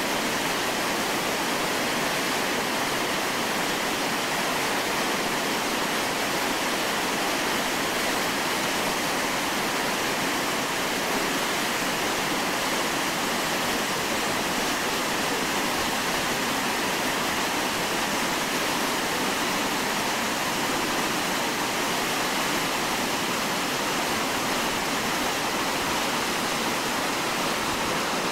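Whitewater rapids rushing over boulders: a steady, unbroken churning of fast river water.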